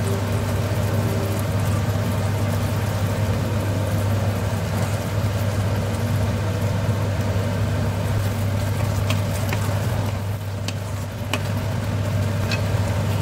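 Chicken and sauce sizzling in a nonstick wok over a steady low hum. A few sharp clicks of a wooden spatula against the pan come near the end as the food is stirred.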